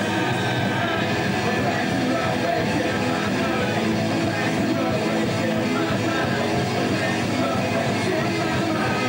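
Live rock band playing, with distorted electric guitars carrying the song and some singing.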